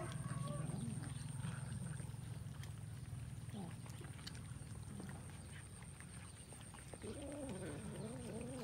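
A crowd of cats eating rice together, with a cat meowing just at the start and a long, wavering meow from near the end, over small clicks of eating and a steady low hum.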